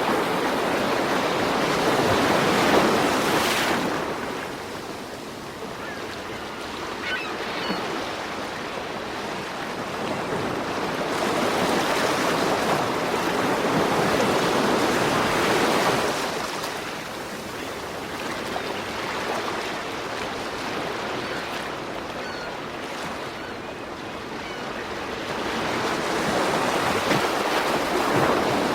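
Ocean surf: waves breaking and washing in, the rush rising and falling in slow swells about every twelve seconds.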